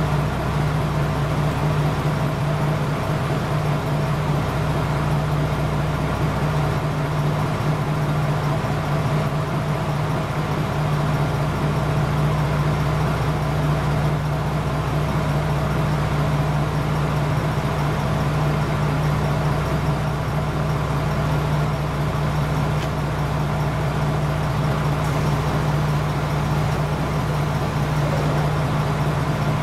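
Diesel engine of a KiHa 47 railcar idling steadily, a constant low hum with no change in speed.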